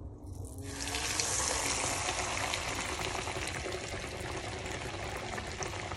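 Breaded squid frying in a small saucepan of hot oil: a steady sizzling hiss with crackles that starts about half a second in as the piece goes into the oil.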